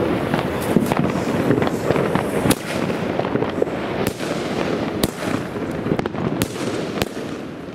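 Vuurwerkmania Double Demolition firework going off, sending shots into the air one after another. Each shot is a sharp crack, about one a second from a couple of seconds in, over a dense, continuous crackle.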